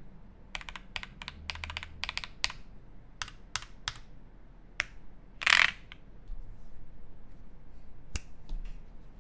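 Mechanical keyboard with lubed Alpaca linear switches on a PC plate, typed in short bursts of keystrokes that thin out to single clicks. About five and a half seconds in comes one louder noise about half a second long, followed by a few faint scattered clicks.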